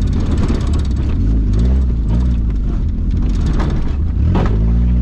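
Mazda convertible's engine revving up and down as it is driven hard along a rough, muddy track, heard from inside the open-top cabin over a rumble of wind and road noise. A single thump comes about four seconds in, after which the engine holds a steadier, higher note.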